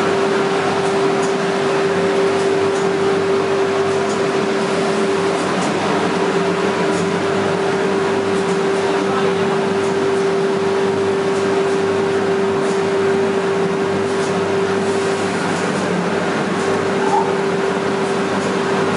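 UV curing machine on a panel coating line running: its blowers and conveyor give a steady drone with one constant tone held over it.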